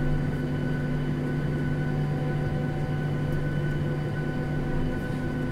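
Inside the cabin of a Boeing 737-800 jet airliner shortly before takeoff: a steady hum of engines and cabin air with a few constant tones, neither rising nor falling.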